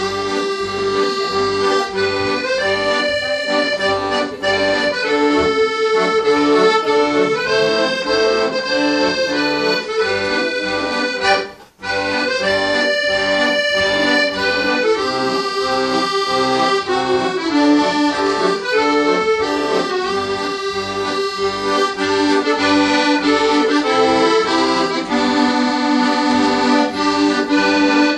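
Solo piano accordion playing a tune with chords, the notes sustained and steady. The music breaks off for a split second a little before the middle.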